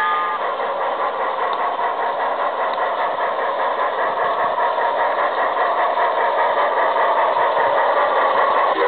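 Large-scale model steam locomotive running along a garden railway trestle with steady rhythmic chuffing. A whistle chord cuts off in the first moment.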